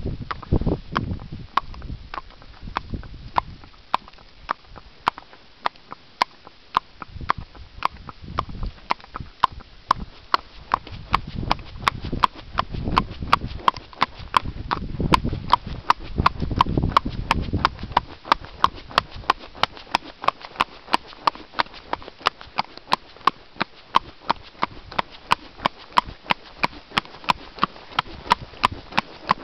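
A Haflinger pony's hooves clip-clopping on a concrete path: a steady, even run of sharp hoof strikes, about three a second.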